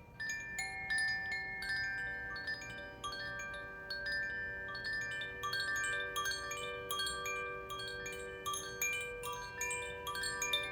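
Koshi chime being played: the clapper inside strikes its tuned metal bars in quick, irregular succession, giving a continuous shimmer of overlapping ringing notes, several strikes a second, resonated by the wooden body.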